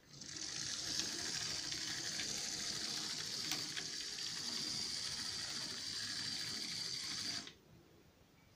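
Tyco HO-scale EMD SD24 model locomotive running on the track: a steady whirring hiss from its motor, gears and wheels with a high, even whine, starting as it runs and cutting off suddenly about seven and a half seconds in.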